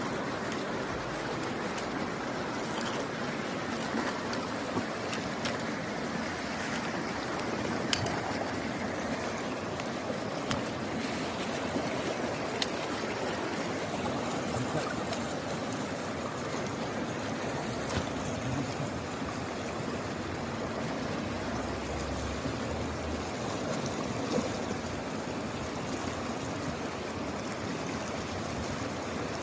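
Mountain stream rushing steadily over rocks, with a few faint sharp ticks now and then.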